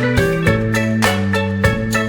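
Background music: a light instrumental tune with plucked or mallet-struck notes over steady sustained tones, on an even beat of about three notes a second.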